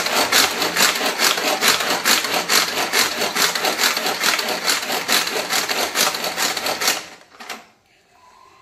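Hand-operated pull-cord vegetable chopper mincing onions: the cord is yanked out again and again, each pull whirring the blades with a rapid rattling rhythm of about five strokes a second. It stops about seven seconds in.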